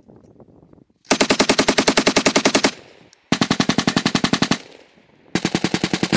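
M240B medium machine gun firing three long bursts at about ten rounds a second, each burst a second and a half or more long with short pauses between; the third runs on past the end.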